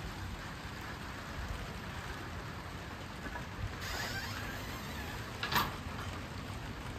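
Rain falling steadily on clear corrugated plastic roof panels. There is one short sharp tap about five and a half seconds in.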